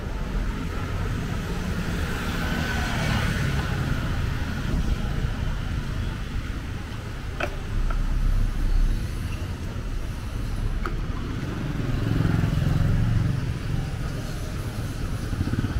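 Urban street traffic: car and motorbike engines running, with a low rumble that swells as a car passes close, about eight seconds in, and again a few seconds later. Two short clicks in between.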